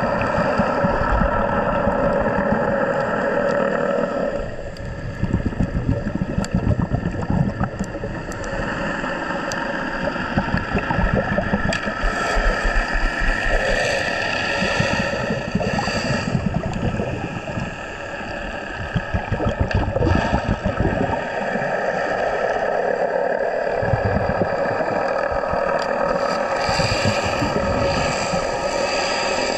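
A motorboat engine running steadily, with a rushing noise over it that rises and falls in waves.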